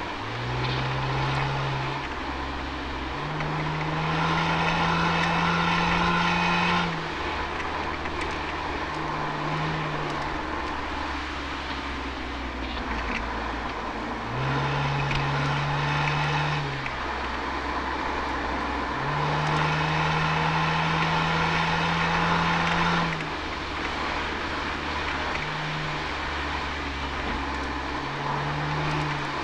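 Toyota Altezza's 1G-FE straight-six through an Apexi aftermarket exhaust, heard from the rear bumper. The exhaust note swells louder and harsher three times for a few seconds each, with a few shorter blips, as the driver gets on the throttle. In between it drops back to a quieter drone off the throttle.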